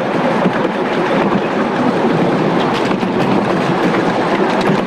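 7.25 inch gauge miniature train running on its track, heard from aboard a passenger car: a steady rumble of wheels on rail with light, irregular clicking.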